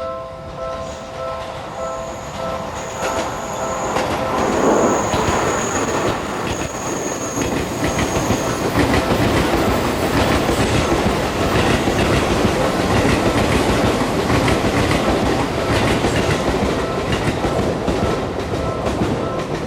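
Japanese level-crossing warning bell ringing in a fast repeating chime. About four seconds in, a Seibu electric train passes close by, and its loud rumble and rhythmic wheel clatter over the rail joints drown the bell. A thin high whine runs through the first part of the pass, and the bell comes back through the noise near the end.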